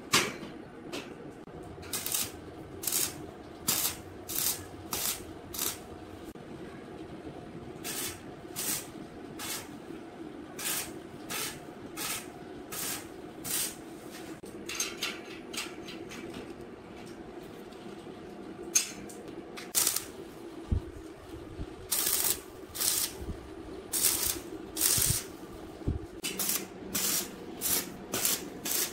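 Stick (arc) welder striking short tack welds on a square steel tube frame: a long run of brief arc bursts, often about one a second, in groups with short pauses and a quieter stretch near the middle, over a steady low hum.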